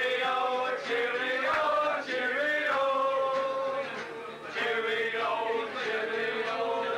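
A group of men singing together in chorus, holding long notes with short breaks between lines.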